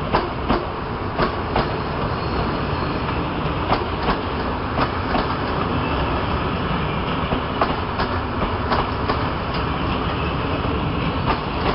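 CFR passenger coaches rolling past on the track: a steady rumble of wheels on rails, with sharp clacks coming in pairs about once a second as the wheelsets cross rail joints.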